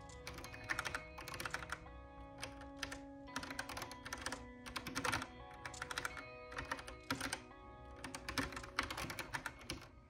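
Typing on a Kinesis Advantage 360 Pro split, contoured keyboard: quick runs of key clicks broken by short pauses, over soft background music.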